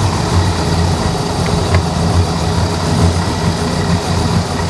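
Freshly built engine of a 1985 Chevrolet K10 pickup idling steadily during its break-in period, with the initial timing just set to about 12 degrees.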